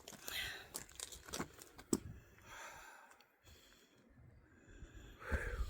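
Faint rustling with a few soft clicks, fading to near silence about halfway through.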